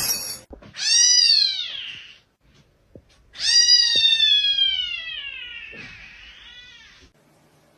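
A cat meowing twice in long, drawn-out calls. The first is shorter and rises then falls; the second is longer and slides slowly down in pitch before fading.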